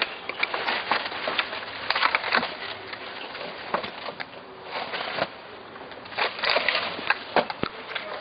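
Irregular sharp taps, clicks and crackly rustling of hands-on work handling building materials during window prep.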